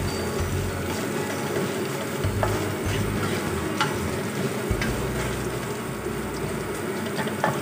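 Julienned ginger and garlic sizzling in hot oil in a wok as they fry toward crispness, stirred and tossed with a spatula, which clicks against the pan a few times.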